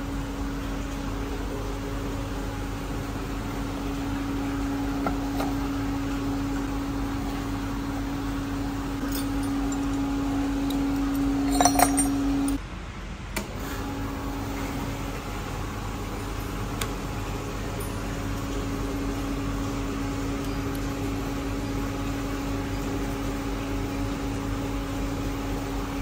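Precious-metal induction melting machine running with a steady, even hum. A few metallic clinks come about 11 to 12 seconds in, and the hum breaks off for about a second just after them, then carries on.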